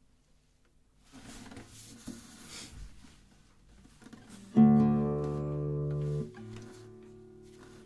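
Nylon-string classical guitar: after a few faint rustles, a loud chord is plucked about halfway through. It rings for about a second and a half, is then damped, and one faint note rings on.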